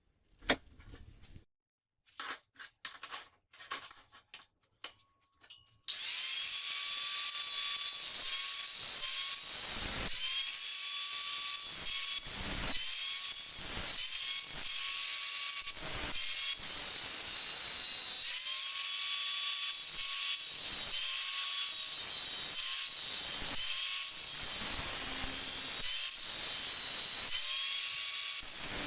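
A few scattered knocks and taps of metal being handled, then an electric power tool starts about six seconds in and runs on. Its motor whine keeps dropping away and climbing back up to speed, as if the tool is loaded and eased off again and again.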